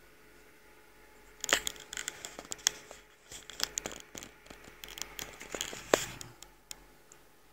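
Irregular crackling, scratching and sharp clicks close to the microphone, like handling or crinkling, starting about one and a half seconds in and dying down near the end.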